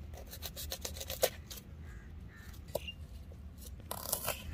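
Vegetables being cut into small pieces with a blade: a quick run of short crisp cuts, then a few scattered ones, with a louder scraping burst near the end.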